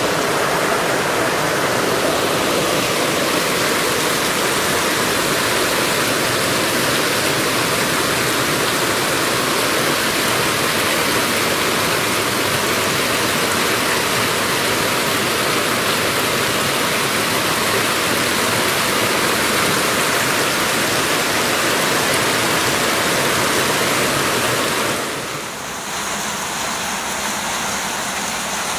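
Loud, steady rush of flowing water. The sound dips and changes character near the end.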